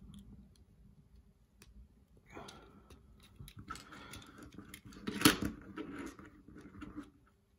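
Plastic building bricks being handled and pressed together: scattered small clicks and rattles, with one sharper clack about five seconds in.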